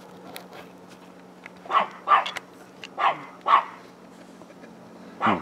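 A dog barking in quick doubles, two pairs of barks with another single bark near the end, over a low steady hum.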